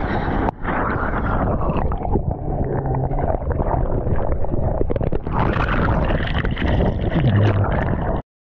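Loud, continuous rush of breaking whitewater and wind on a GoPro's microphone as a surfer rides through the barrel of a breaking wave. The sound cuts out abruptly near the end.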